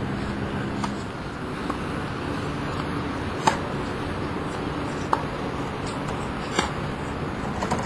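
Tennis ball struck with racquets in a rally: sharp pops about every second and a half, with fainter ticks between, over steady background noise.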